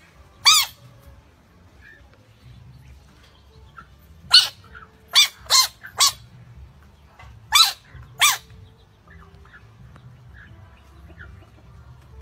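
Seven short, sharp animal cries, each rising and then falling in pitch: one near the start, then six in quick succession between about four and eight seconds in.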